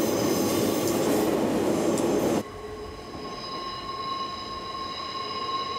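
Electric train climbing a steep mountain grade, heard from the cab: loud running noise of the motors and wheels with a squealing, howling tone from the effort of the climb. About two and a half seconds in the sound drops suddenly to a quieter steady whine.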